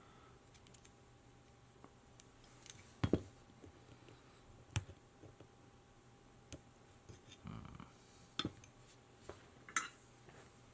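Small hard objects handled on a workbench: scattered clicks and light knocks, the loudest about three seconds in and just under five seconds in, with a few more near the end.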